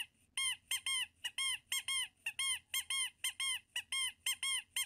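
Leg-extension machine squeaking with each fast rep: a quick run of short, high squeaks, about four a second and often in pairs, each rising and then falling in pitch.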